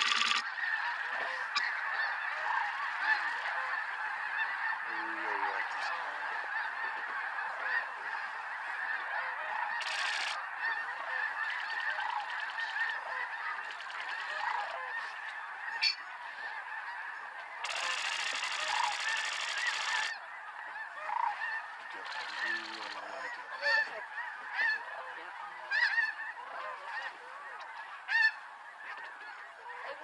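A huge flock of snow geese calling all at once, a dense unbroken din of honking. Toward the end the chorus thins a little and single louder calls stand out.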